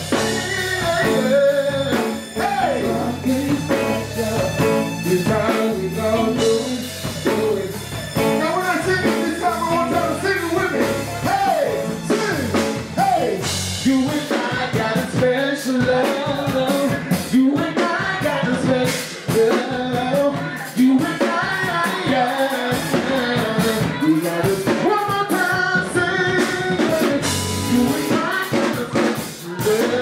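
Live band music: a male singer singing over electric guitar and a drum kit keeping a steady beat.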